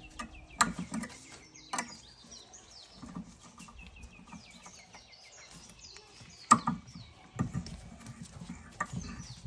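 Metal clicks and knocks as a tungsten ring is pushed off a lathe mandrel with a metal rod. Three sharp knocks stand out, the loudest about six and a half seconds in.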